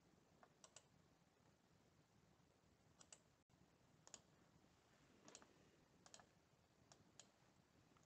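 Faint computer mouse clicks, about eight at irregular intervals, some in quick pairs, over quiet room tone.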